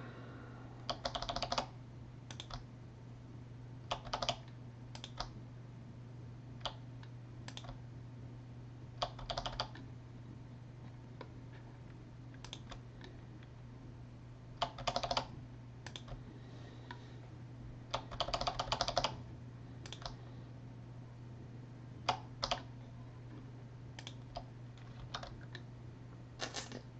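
Typing on a computer keyboard in short bursts of keystrokes, a few seconds apart, as a list of team names is entered into a randomizer. A steady low hum runs underneath.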